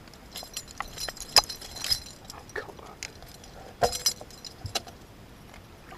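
Metal tool clicking and clinking against the hooks and blade of a bucktail lure while a musky is unhooked in a landing net. The clinks come at irregular intervals, the loudest about a second and a half in and again near four seconds.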